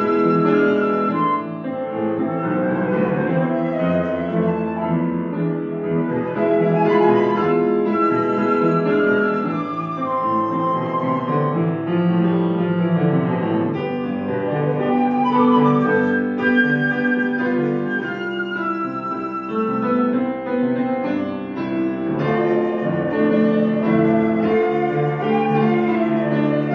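Johannes Hammig cocus-wood flute and Bösendorfer grand piano playing a classical duet, the flute's melody in long held notes over the piano.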